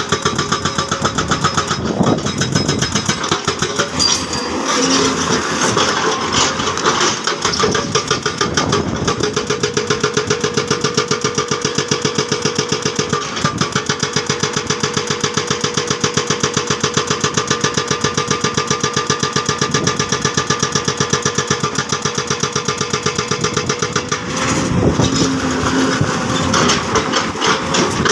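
Hydraulic breaker on a Sany excavator hammering in a fast, even rattle of blows over the running diesel engine, with a steady hydraulic whine through the middle stretch.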